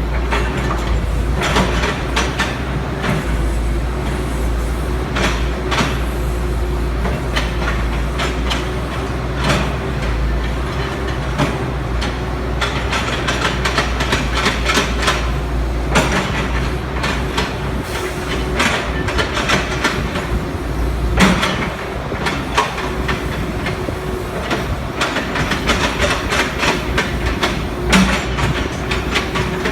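Excavator's diesel engine running steadily under load, with frequent metal clanks and knocks as the machine works demolition rubble. The low rumble eases about two-thirds of the way through.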